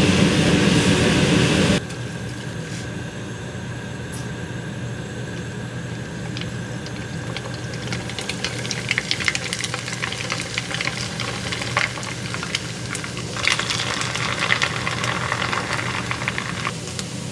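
Forbidden rice puffing in a mesh strainer in oil at 400°F: sizzling with crackles that build from the middle, loudest for a few seconds near the end. It opens with a loud steady rushing noise for about two seconds.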